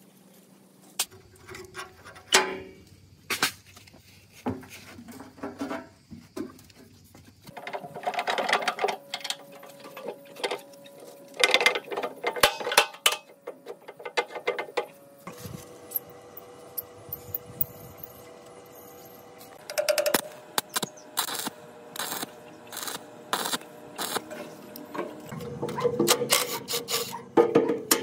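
Hand work on metal machine parts: an irregular run of clicks, taps and knocks, with a steady tone for a few seconds in the middle.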